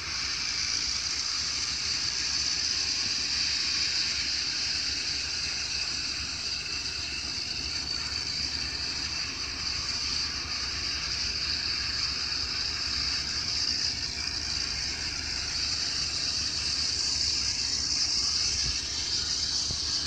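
A steady rushing hiss, like running water, that starts abruptly and holds even, with most of its energy in the upper range.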